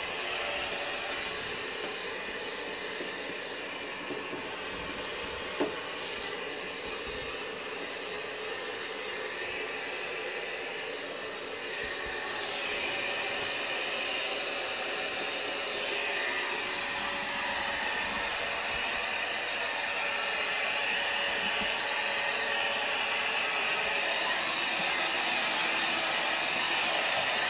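Steady airy hiss of background noise with no clear pattern, a little brighter in its second half, with one sharp click about five and a half seconds in.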